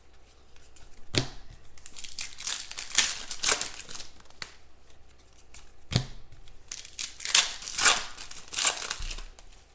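Foil trading-card pack wrapper crinkling and tearing as a pack is ripped open by hand, in a run of irregular rustles with a few sharper rips.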